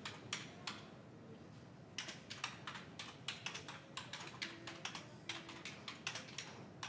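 Faint typing on a computer keyboard: a couple of keystrokes at the start, then after about two seconds a quick, irregular run of key clicks.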